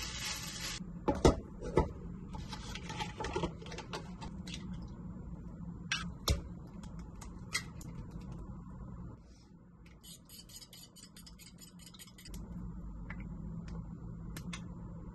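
Kitchen handling sounds: the sizzle of fried rice being stirred in a pan stops, followed by a few sharp knocks of a wooden spatula and pans. Eggs are tapped and cracked on a ceramic bowl, then a run of rapid clicks comes from chopsticks beating the eggs in the bowl.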